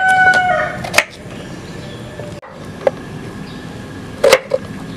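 A rooster's crow trails off within the first second. Then a knife knocks a few times on a wooden cutting board as a round green eggplant is cut, the loudest chop near the end.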